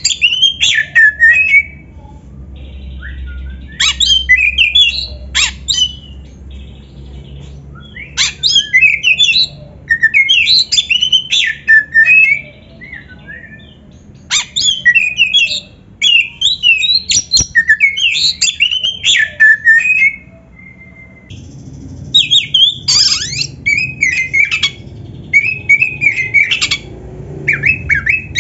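Oriental magpie-robin (kacer) singing full song: bursts of rapid, varied whistles and harsher chattering notes, with short pauses between phrases.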